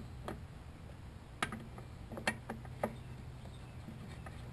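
Several short, sharp metallic clicks and taps from a gloved hand handling the drive pulley and its parts on a self-propelled lawnmower's deck.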